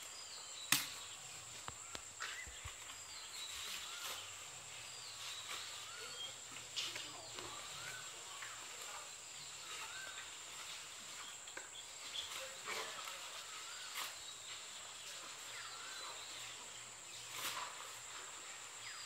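Outdoor ambience of small birds chirping on and off over a steady high insect drone, with a few sharp clicks or knocks, the loudest about a second in.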